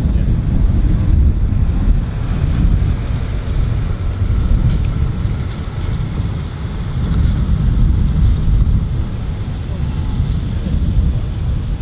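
Wind buffeting the microphone outdoors: a loud, uneven low rumble that swells and eases.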